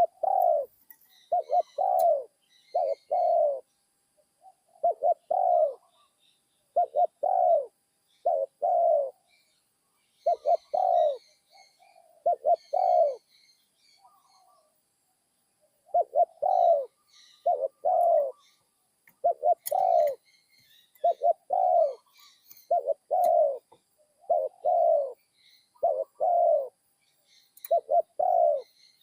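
A spotted dove cooing over and over in short phrases of two or three low coo notes, with a pause of about two seconds near the middle. It is a young bird of the mid-pitch voice type being trained as a decoy. Faint chirps of small birds sound higher up in the background.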